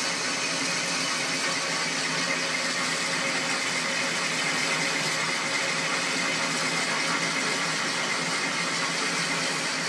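South Bend 13-inch lathe running steadily at its slowest speed while a high-speed steel bit takes a 0.100-inch-deep cut in 1117 steel. Its drive motor adds a screeching sound from worn bearings that need replacing.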